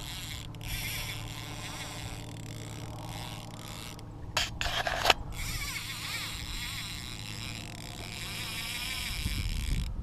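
Fly reel's click-and-pawl drag ratcheting steadily while a trout is played on the line, its clicking speeding up and slowing down. A few louder knocks come about four to five seconds in.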